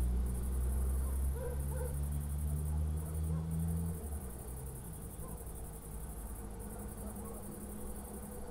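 Low rumble of distant thunder rolling on and dying away about four seconds in, over the steady chirping of crickets.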